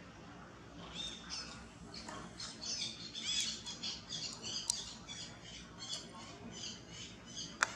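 A rapid run of high, squeaky animal chirps, about two or three a second, with a sharp click near the end.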